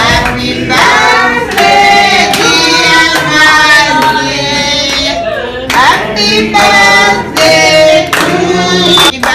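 A group of adults singing together in a room and clapping their hands along with the song.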